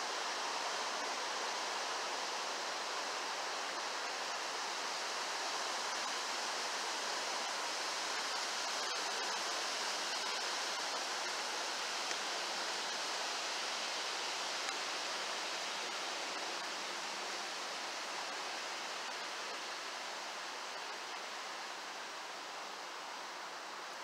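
Shallow stream running over rocks: a steady rush of moving water that eases slightly near the end.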